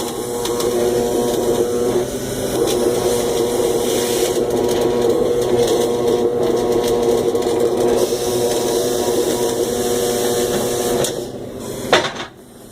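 Stick-welding arc crackling over the steady hum of the welding machine under load, stopping about eleven seconds in; a sharp click follows near the end.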